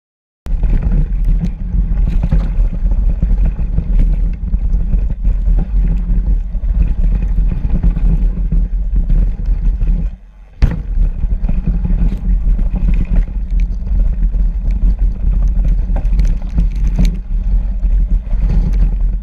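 Mountain bike descending a snowy trail, heard through an action camera's microphone: a loud, steady rumble of wind buffeting and tyre and trail noise, with scattered clicks and rattles. Just after halfway the rumble briefly drops away, then comes back with a sharp knock.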